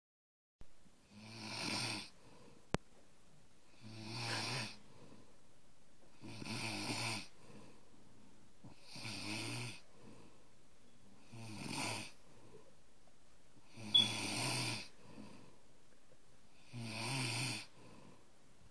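Snoring during sleep: seven long, rough snores, each about a second long, coming about every two and a half seconds. A short sharp click sounds twice, the second one the loudest moment.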